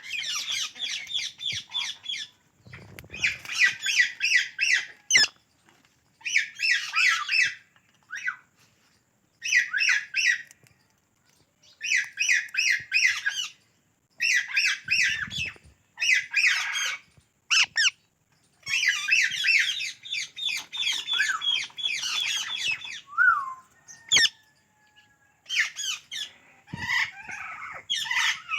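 Psittacula parakeets (the Indian ringneck and alexandrine parrot kind) giving rapid, shrill chattering squawks in repeated bursts of one to three seconds with short pauses between them.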